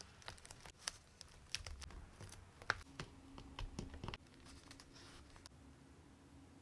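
Fingers and fingernails pressing and smoothing paper stickers onto a journal page: a string of light taps and clicks with paper crinkling, one sharper tap near the middle. The handling sounds stop about four seconds in.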